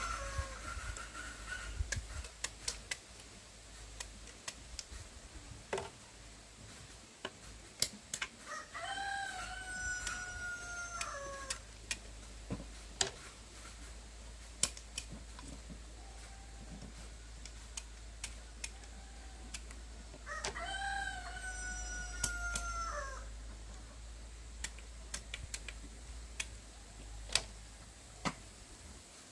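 A rooster crowing three times: one crow at the start, another about nine seconds in and a third about twenty seconds in, each a long held call that drops in pitch at the end. Scattered sharp knocks sound in between.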